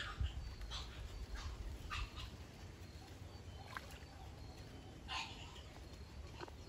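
Tilapia in a floating net cage taking feed at the water surface: scattered short splashes and slurps, roughly one a second, over a low rumble.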